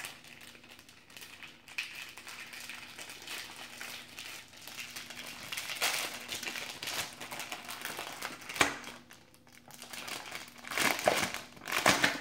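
Clear plastic packaging bag crinkling as it is handled and unwrapped, with several louder crackles in the last few seconds.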